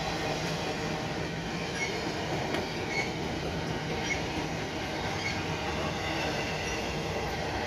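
Freight train cars rolling past: a steady rumble of steel wheels on rail, with short high wheel squeaks recurring roughly once a second.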